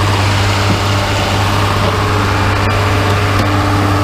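A loud engine running steadily at an even pitch, with no change in speed.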